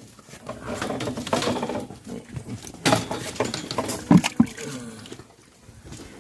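Water buffalo moving about in a muddy pen: irregular squelching hoof steps and shuffling, with a sharp knock about three seconds in and a few louder knocks just after four seconds.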